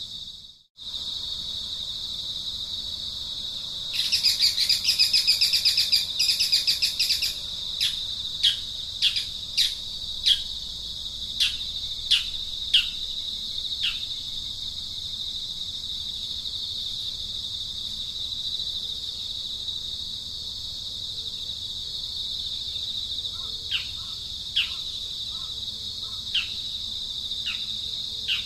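Insects droning steadily at a high pitch. About four seconds in comes a loud buzzing trill for roughly three seconds, followed by a bird giving a string of short, falling chirps, with a few more chirps near the end.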